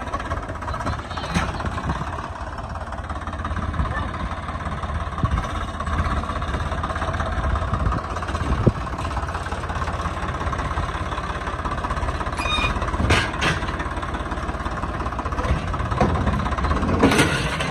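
Swaraj 855 FE tractor's three-cylinder diesel engine running steadily under load while it works a rear-mounted loader bucket digging and dumping sand. A few sharp knocks come in the second half.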